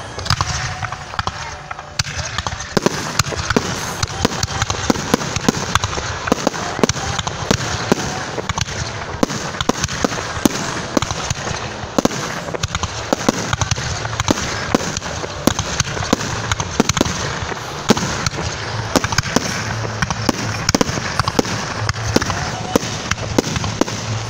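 Aerial fireworks shells bursting one after another in a dense barrage, several sharp bangs a second with no let-up.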